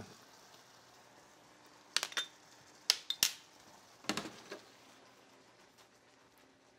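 Metal kitchen utensil and pan clinking as butter is added to a simmering pan sauce: a few sharp clinks about two and three seconds in, then a duller clatter about four seconds in.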